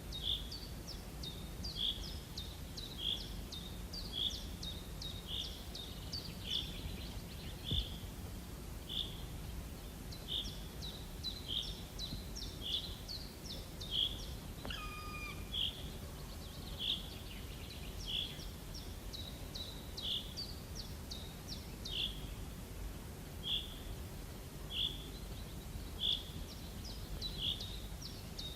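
A bird calling over and over, a short high note about once a second with quicker high chirps over it, and a single falling whistle-like note about halfway through.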